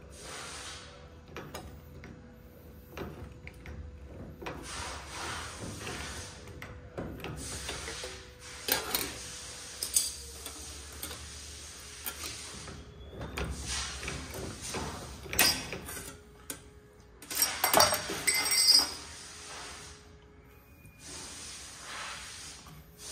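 Beverly throatless shear cutting sheet steel by hand lever: a run of crunching snips and metallic clinks as the blade bites, with the sheet scraping and rattling as it is fed and turned. The sharpest, loudest snips come about three-quarters of the way through.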